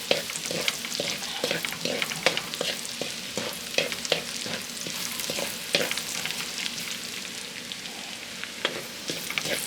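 Garlic sizzling as it toasts in bacon fat in a pan, with a steady hiss and frequent scrapes and clicks of a utensil stirring it against the pan.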